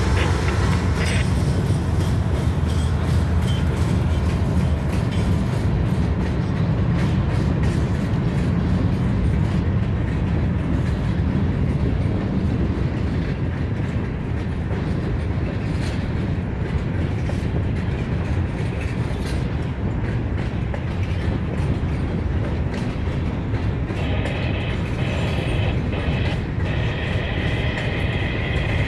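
Freight train passing: the diesel locomotives' engines running with a steady low rumble as they go by, then hopper cars rolling past on the rails. A high-pitched whine joins in the last few seconds.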